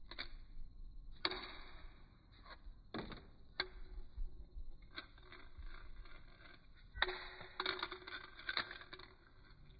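Plastic Pokémon tazos thrown onto a tile floor, clicking and clattering against the tile and each other in a scatter of sharp hits, with a quicker cluster of hits near the end.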